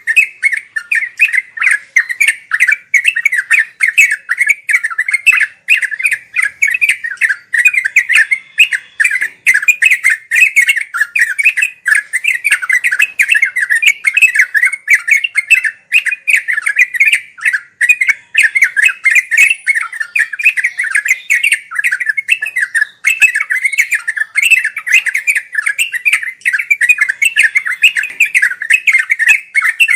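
Yellow-vented bulbul (trucuk) singing in a fast, unbroken chatter of short bubbling notes. This is the continuous 'ngeropel' song used as a master track for training cage birds.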